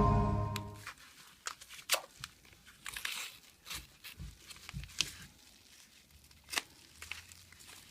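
Intro music fades out in the first second. Then a mailed parcel is opened by hand: scattered short tearing, crinkling and clicking sounds of tape and packing material, with pauses between them.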